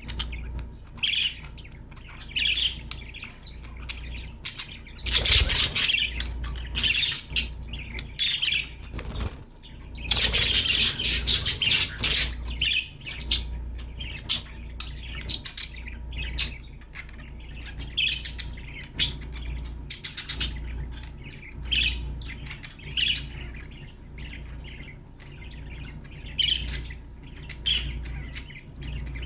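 Budgerigars chirping and warbling in short bursts, with two louder rustling spells about five and ten seconds in, over a low steady hum.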